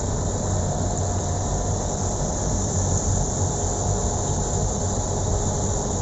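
Steady electric motor hum with an even hiss over it, running without change.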